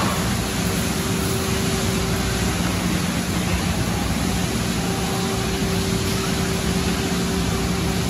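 Car wash tunnel machinery running: a steady rushing noise over a constant low electric hum.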